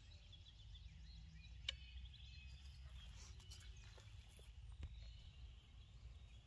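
Near silence: a faint low rumble with faint bird chirps, and one sharp click about a second and a half in.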